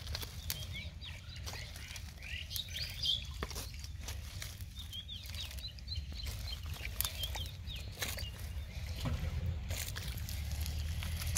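Birds chirping over and over in short, quick calls, with scattered wet squelches and clicks from hands working through shallow mud and water.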